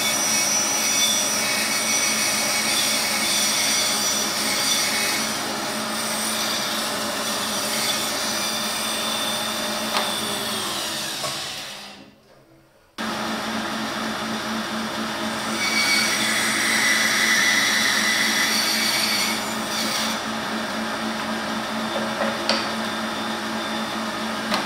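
Laguna woodworking bandsaw running and cutting along a curved line through a thick block of wood. It runs steadily, with a higher whine for a few seconds past the middle. The sound cuts out briefly about halfway through, then resumes.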